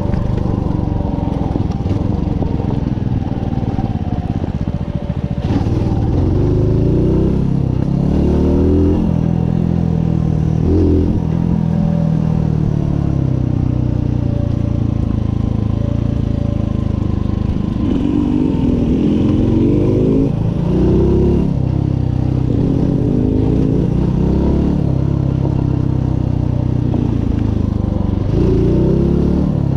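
Mutt motorcycle's single-cylinder engine running under load on a rough gravel road, its revs rising and falling several times with the throttle.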